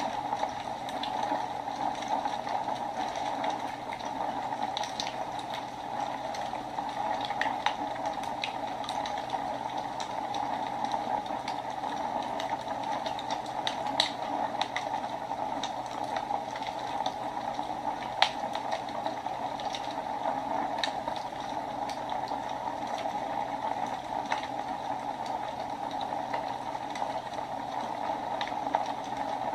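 Wood fire burning in a fireplace: a steady rushing hiss with scattered sharp crackles and pops, two of them louder a little past the middle.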